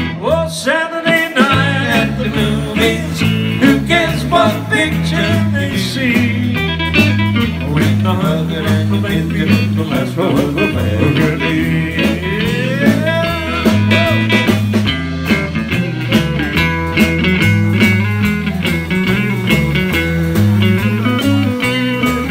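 Live band of electric guitar, electric bass and drum kit playing an instrumental break with no singing: a guitar line that bends in pitch over a steady bass line and drum beat.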